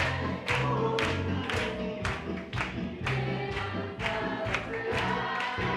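Congregation singing a worship song over a band with bass. Hand-clapping falls on the beat about twice a second.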